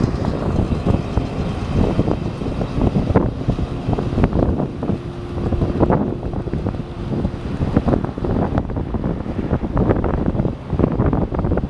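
2014 Gleaner S78 combine's diesel engine running as the machine drives and turns, with wind buffeting the microphone.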